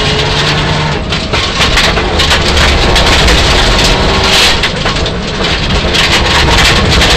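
Mitsubishi Lancer Evolution IX rally car heard from inside the cabin at stage speed: the turbocharged four-cylinder engine running hard, with gravel clattering against the underbody and wheel arches. The noise dips briefly twice, about a second in and near five seconds.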